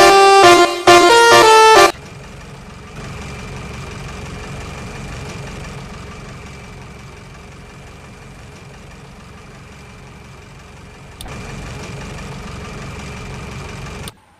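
Tour bus's telolet horn playing a quick multi-note melody, cutting off about two seconds in. A vehicle's engine and road rumble follow at a much lower level and stop abruptly near the end.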